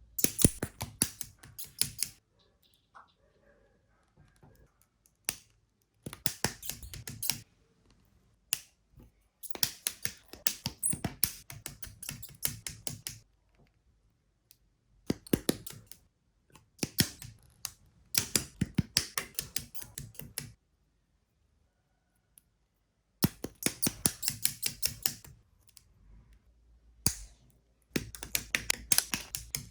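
Plastic model kit parts being handled and fitted together, heard as bursts of rapid small plastic clicks and ticks lasting a second or two each, with short quiet pauses between them.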